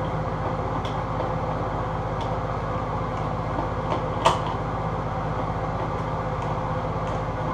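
Steady low machine hum throughout, with a few faint ticks and one sharp click about four seconds in.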